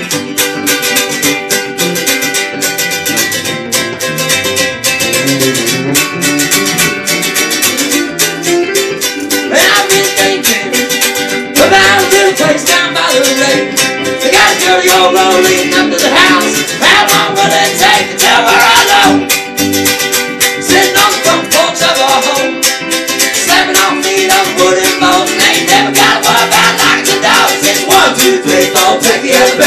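Two-piece band playing a cover song on strummed string instruments at a quick, steady beat, with singing in places.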